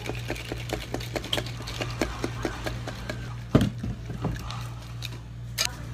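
Ice clicking and rattling in a tall plastic cup as the drink is stirred and handled, in quick light clicks. A loud knock comes about halfway through, with a few smaller knocks after it, over a steady low hum.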